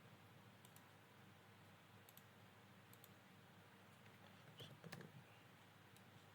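Faint computer mouse clicks, several spread out, over a steady low background hiss, with one short faint noise about five seconds in.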